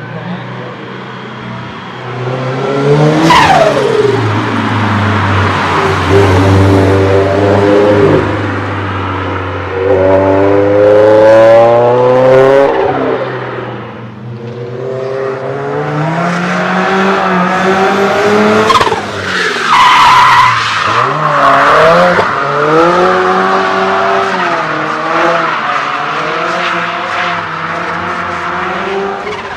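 Performance car engines revving hard, climbing in pitch through several pulls and dropping off between them, with tyre squeal and skidding noise over the top.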